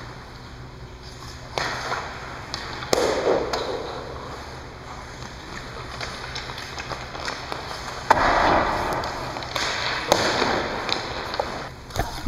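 Ice hockey skates scraping and carving on rink ice, with sharp cracks of hockey stick and puck about three, eight and ten seconds in.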